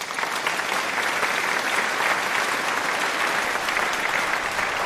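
Steady crowd applause, many hands clapping at once, cutting in sharply as an inserted sound effect.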